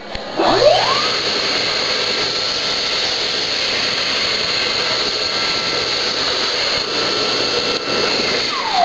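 Electric hand dryer spinning up with a rising whine, blowing steadily for about eight seconds, then winding down with a falling whine near the end.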